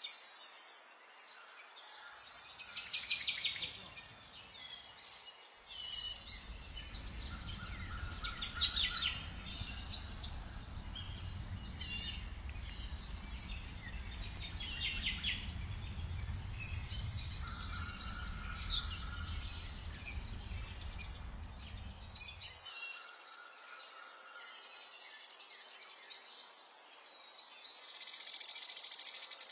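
Several small birds chirping and singing in quick, overlapping calls and trills. A low steady rumble comes in about six seconds in and cuts off abruptly about two-thirds of the way through.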